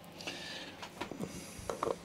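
Small clicks and knocks of a plastic air filter housing being handled and pushed into place over a lawn mower engine's carburettor, with a soft hiss near the start.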